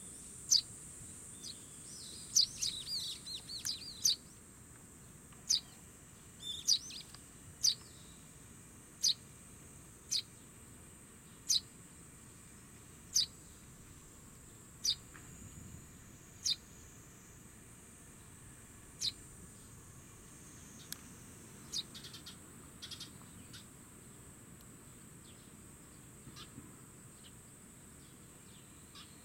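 Fledgling Eurasian tree sparrow calling: short, sharp chirps repeated about every second and a half, with a flurry of twittering a few seconds in, the calls thinning out after the middle. A steady high insect trill runs underneath.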